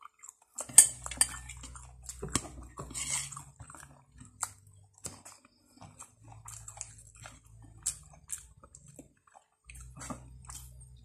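Close-up eating sounds: chewing and mouth clicks on a fried chicken wing, with spoon clinks against a bowl. A low hum comes and goes in stretches of a second or two.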